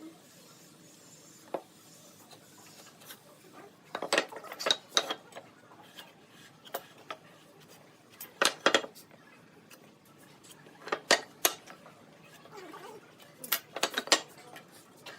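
Hard objects clinking and knocking in short clusters of two or three sharp strikes, four clusters a few seconds apart.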